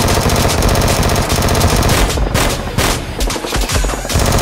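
Rapid automatic gunfire, a dense stream of shots in quick succession.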